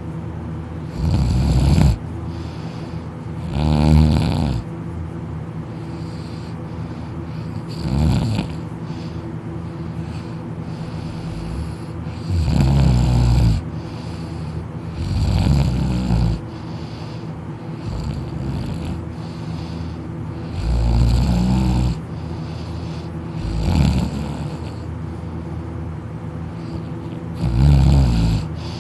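A person asleep on their back, snoring loudly with the mouth wide open: about eight long, rasping snores, each around a second long, coming every three to five seconds.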